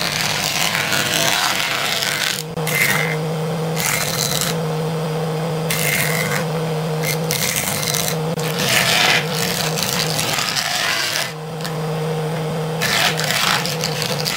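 Woodworking jointer running with a steady motor hum, its cutter head shaving a board in repeated passes: each time the board crosses the knives a loud noisy cutting sound rises over the hum, about a second long, several times over.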